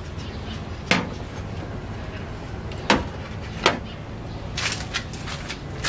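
Knocks and clatter of a serving plate and vegetables being set down on a table: three sharp knocks spaced a second or two apart, then a quicker run of lighter clatter near the end.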